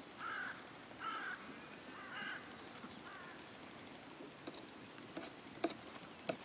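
Four short animal calls about a second apart, followed by a few light knocks as a lamb noses at a black plastic feed tub.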